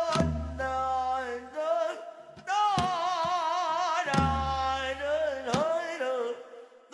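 Korean traditional folk dance music: a wavering melody with heavy vibrato over deep drum strokes, one big booming stroke at the start and another about four seconds in, with sharper knocks between.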